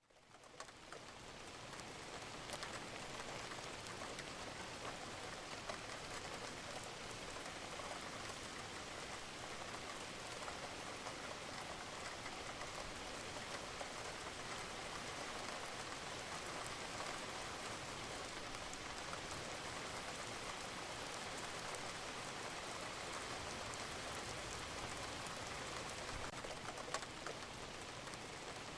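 Steady rain falling, a dense even patter of drops hitting a surface, with an occasional louder drop. It fades in over the first second.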